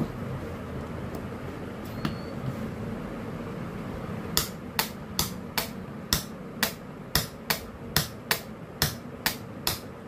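Repaired push-button trigger switch of an 11E demolition hammer clicking on and off repeatedly while it is tested, sharp clicks at about two to three a second starting about four seconds in. The switch is working properly after the repair.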